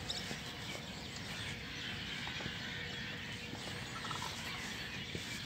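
Faint outdoor ambience with a few short, distant bird calls about four seconds in, over soft footsteps on sand and pebbles.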